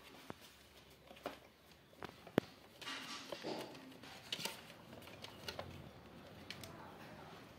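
Faint scattered clicks, knocks and rustling of kittens moving and playing on a hard floor under a wooden shelf, with one sharp click about two and a half seconds in.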